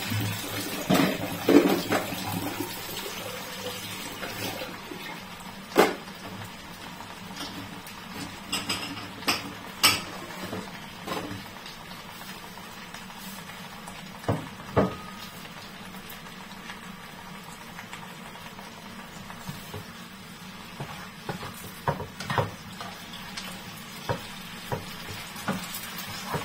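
Scattered clinks and knocks of cookware and dishes, over a steady low background noise. Toward the end, a spatula taps and scrapes in a frying pan of vegetables as they are stirred.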